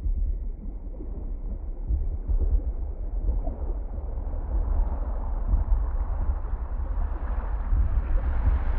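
Opening of an electronic dance track, muffled under a low-pass filter that slowly opens: deep bass with dull upper sounds that grow gradually brighter.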